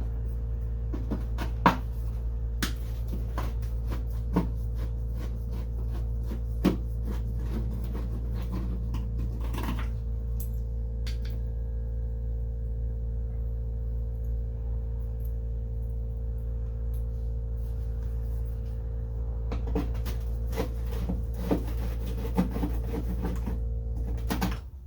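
A steady low hum, starting and stopping abruptly, with scattered clicks and small metal taps of parts being handled over it.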